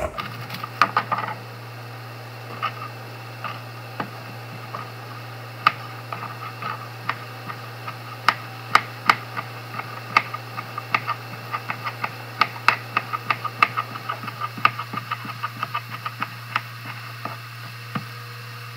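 Kitchen knife dicing an onion on a cutting board: sharp knocks of the blade on the board, scattered at first, then coming quickly at several a second through the second half. A steady low hum runs underneath.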